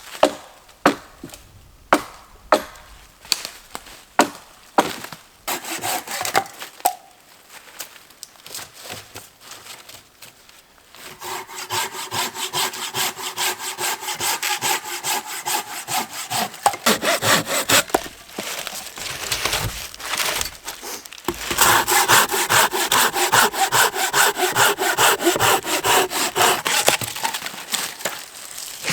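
A handsaw cutting firewood in two long bouts of quick, even back-and-forth strokes. Before them comes a run of separate sharp wooden knocks and cracks.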